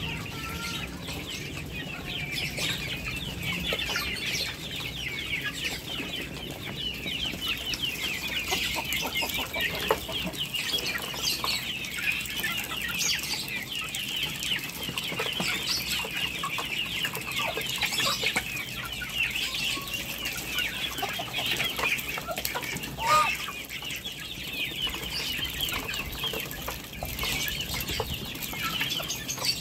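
Poultry chattering: a continuous stream of high chirps and clucks, with scattered pecking knocks and one louder call about 23 seconds in.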